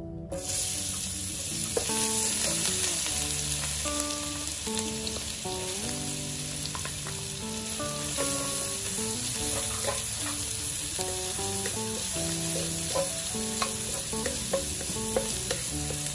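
Minced garlic, ginger and scallion sizzling in hot oil in a wok, the sizzle starting suddenly as they hit the oil. A wooden spatula scrapes and stirs them against the pan.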